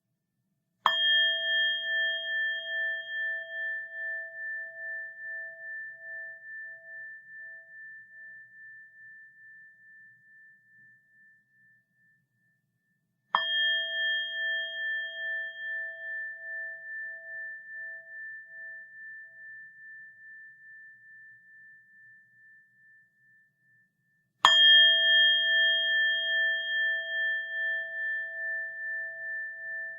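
A bell struck three times, about eleven to twelve seconds apart. Each strike rings on in a long, wavering tone that slowly dies away, and the last is still ringing at the end.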